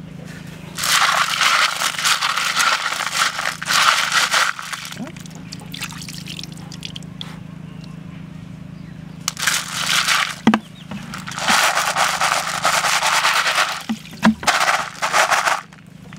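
Small clams in a wicker basket being stirred and shaken by hand, their shells clattering against each other in four spells of a few seconds each. A steady low hum sits beneath.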